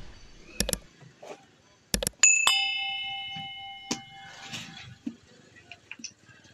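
A bright bell ding, struck twice in quick succession about two seconds in and ringing out over about a second and a half, preceded by a few sharp clicks. Faint rustling of cardboard follows.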